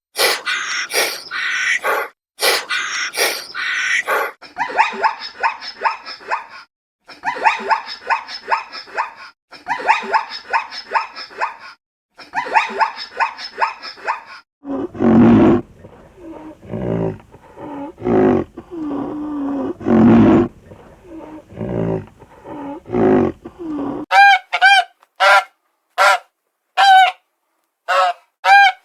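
A run of different animal calls: high, rapid chattering calls in repeated bouts for about the first half, then loud low calls for about ten seconds, then short clear honks near the end.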